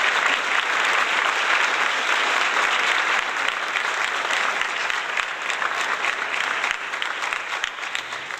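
Crowd applause, many hands clapping in a dense patter that gradually fades toward the end.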